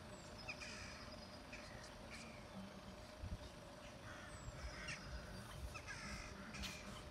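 Crows cawing: a series of short, harsh calls, faint, repeated several times.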